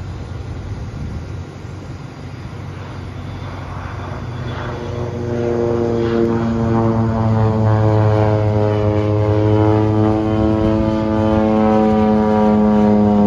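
Crop-dusting airplane's propeller engine approaching low and passing overhead, growing louder through the first half and then holding a loud, steady drone, with its pitch dropping slightly near the end.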